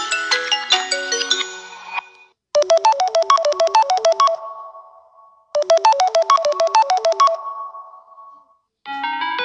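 Samsung Galaxy A32 ringtones playing in turn. A melodic ringtone fades out, then a short ringtone, a fast run of chiming notes, plays twice, each run ringing out after about two seconds. Another ringtone begins near the end.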